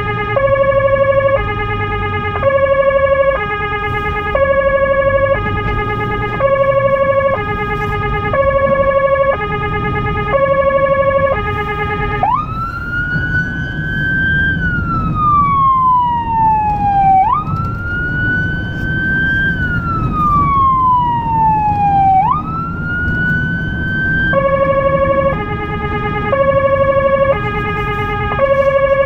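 Electronic emergency siren on a blood-transport car, heard from inside the cabin: a two-tone hi-lo pattern, each note about a second long. About twelve seconds in it switches to a wail of three long sweeps, each rising fast and falling slowly, then goes back to the two-tone. Engine and road rumble run underneath.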